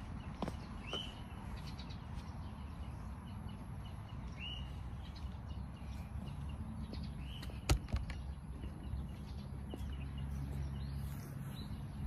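Open-air ambience: a low steady rumble with a few short bird chirps scattered through it and faint clicks, and one sharp click a little past the middle that is the loudest sound.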